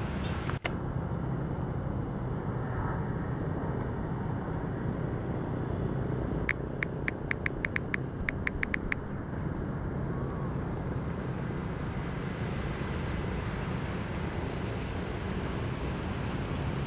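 Diesel-electric locomotive CC 201 running with a steady low rumble as it approaches. About six and a half seconds in, a bell rings in two quick runs of about six strokes each.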